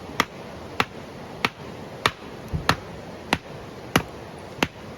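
Repeated sharp knocks of a firewood split being struck, about eight evenly paced blows: the piece is not yet splitting.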